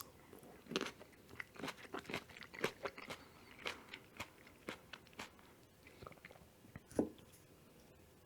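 Close-miked chewing and biting of mushroom carbonara: a run of short wet mouth clicks and smacks, then a pause, with one louder smack near the end.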